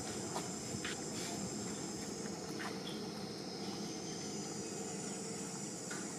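Steady high-pitched insect chorus of cicadas or crickets, over a low steady hum, with a few faint taps and rustles.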